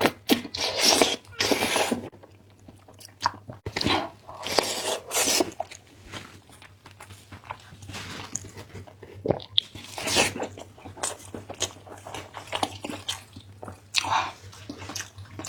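Close-miked eating: a person chewing and biting food, with loud irregular bursts of mouth noise, each about a second long.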